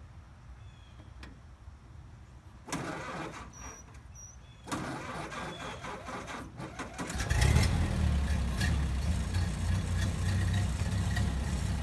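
1931 Ford Model A pickup's four-cylinder flathead engine being cranked on the starter, catching about seven seconds in and settling into a steady, low-pitched idle.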